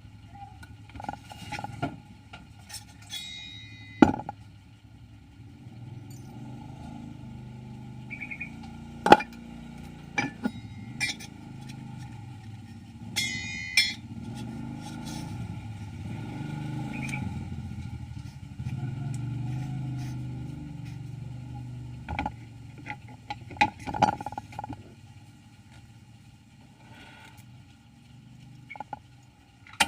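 Automatic coil-winding machine running with a steady low hum that grows louder in the middle stretch, with scattered sharp clicks and knocks.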